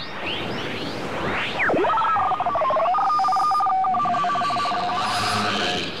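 Radio receiver tuned across the band: sweeping whistles for the first two seconds, then two steady tones sounding together, with a fast flutter, for about four seconds.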